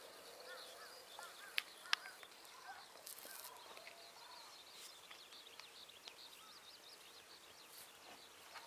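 Faint outdoor ambience of small birds chirping and twittering, with two sharp clicks about one and a half and two seconds in.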